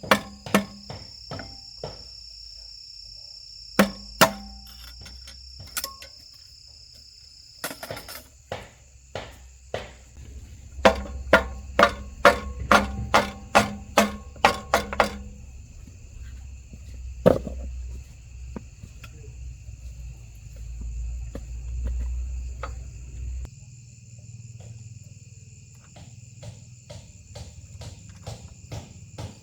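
Hammer blows striking metal, each with a short ring, coming irregularly and then in a fast run of about ten blows, roughly two a second, near the middle. A steady high insect buzz runs underneath.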